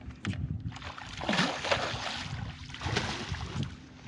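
Water splashing and sloshing in two bursts, one about a second in and one near the end of the third second, as a common carp struck by a bowfishing arrow thrashes at the surface. A steady low hum runs underneath.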